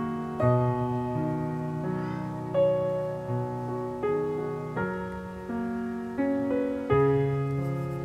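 Slow, gentle background piano music: a note or chord is struck roughly every three-quarters of a second and left to ring and fade.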